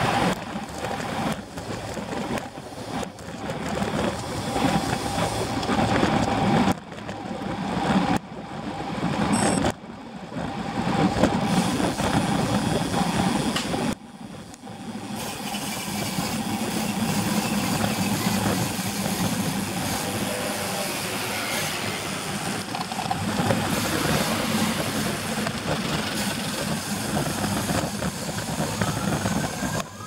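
Wind rushing over a bicycle-mounted camera's microphone, mixed with tyre noise on a wet road and passing car traffic, with a few sudden brief drops in the noise. A siren starts to wail right at the end.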